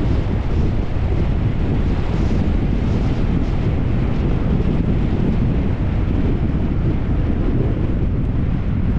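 Wind rushing and buffeting over an action camera's microphone during a fast downhill bicycle ride, a steady low rumble that never lets up.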